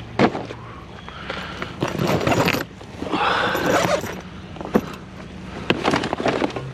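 Junk being handled and moved about: sharp knocks and clatters, several of them, with two stretches of scraping and rustling in between.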